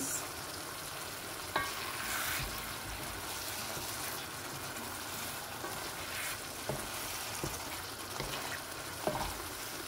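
Thick tomato stew sizzling and bubbling in a frying pan as a wooden spoon stirs it, with a few light knocks of the spoon against the pan.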